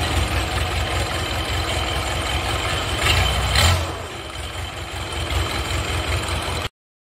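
Diesel engine idling with a steady low chugging. It swells briefly about three seconds in, runs a little quieter after that, and cuts off suddenly near the end.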